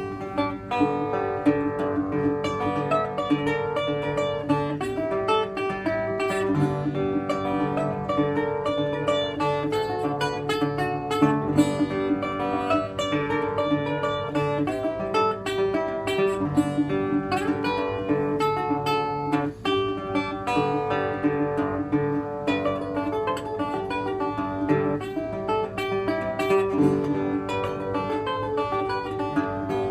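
National Style O metal-bodied single-cone resonator guitar, fingerpicked: a steady bass line under a melody of plucked notes, played without a pause.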